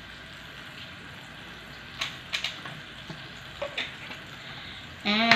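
Pan of pork leg braising in soy sauce and vinegar, sizzling steadily on a gas stove, with a few light clicks about two and nearly four seconds in.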